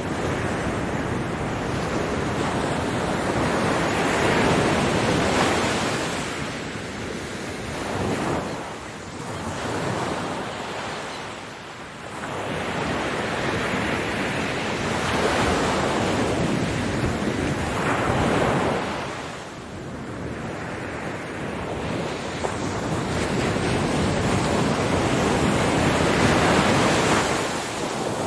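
Ocean surf: waves breaking and washing in, the rush swelling and easing every several seconds.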